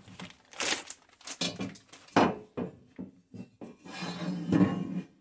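Black steel TV wall-mount bracket pieces being handled on a wooden workbench: plastic packaging rustling and a series of knocks and clatters as the metal frames are picked up and set down on the wood.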